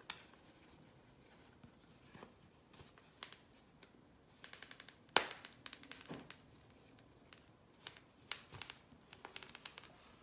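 Hands handling a fine necklace chain and its pouch: scattered light clicks and ticks, with a quick run of small ticks followed by one sharper click about five seconds in, and more ticks near the end.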